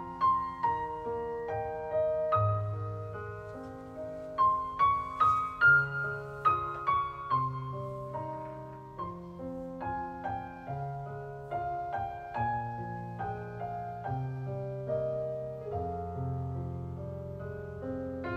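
Piano music: a melody of single struck notes over longer-held low notes.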